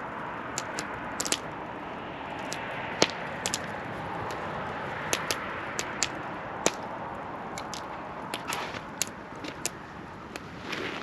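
Wood campfire crackling: sharp, irregular pops and snaps over a steady hiss, the loudest pop about three seconds in.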